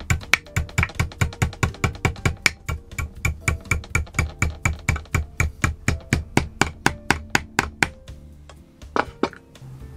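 A rapid, even series of sharp knocks, about four to five a second, that stops near the end and is followed by two more knocks, over background music.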